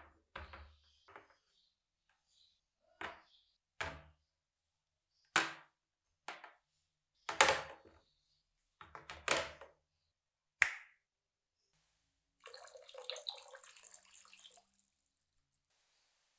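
Cast metal meat grinder parts set down one at a time in a plastic tub: a series of separate clunks and clacks, one sharp click among them. Near the end comes about two seconds of dense rattling noise.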